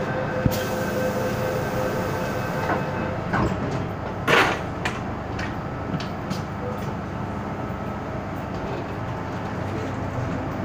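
MTR M-Train door-closing sequence heard from inside the car: a steady warning tone with hiss for about three seconds, then the sliding doors shut with one loud bang about four seconds in, followed by a few lighter clicks over the train's steady hum.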